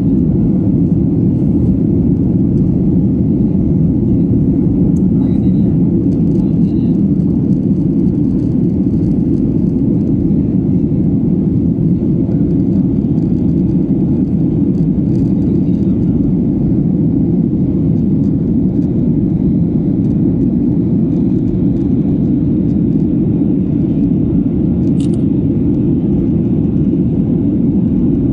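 Steady, loud low rumble of a Boeing 737-700's cabin in the climb after takeoff: the engines and rushing air heard from inside the passenger cabin at a window seat.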